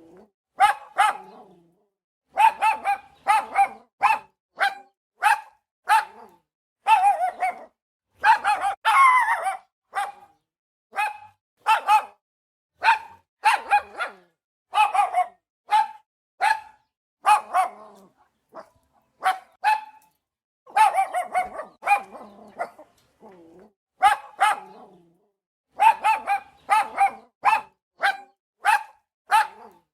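Dog barking over and over in short, sharp barks, often two in quick succession, with brief pauses between runs.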